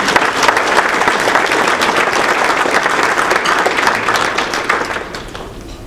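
Audience applauding: a room full of people clapping, the applause dying away near the end.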